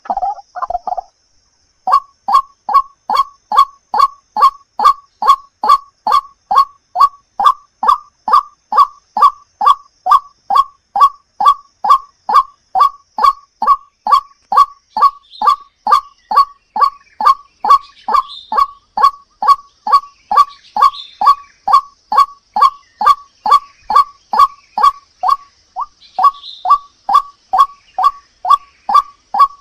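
White-breasted waterhen (ruak-ruak) lure call: a jumbled burst of calls, a short pause, then a long monotonous series of short, identical notes at about two and a half a second, broken briefly near the end.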